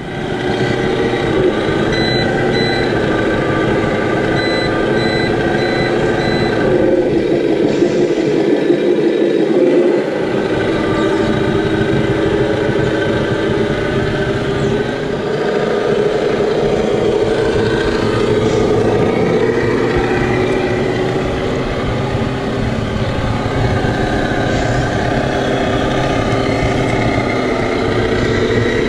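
Radio-controlled scale Scania truck's onboard sound module playing a simulated diesel truck engine running, its pitch shifting a little as the truck drives, with a few short reversing beeps in the first seconds.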